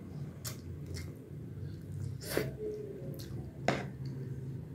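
Eating sounds of spicy instant noodles being slurped and chewed, with several sharp clinks of a metal fork and spoon against a ceramic plate; the two loudest clinks come about two and a half and three and a half seconds in.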